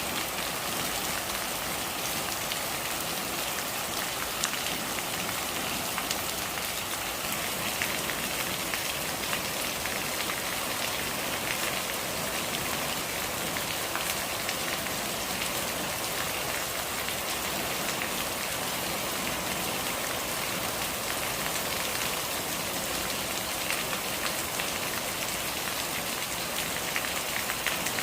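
Steady rain falling on surfaces: an even hiss with a dense patter of individual drops.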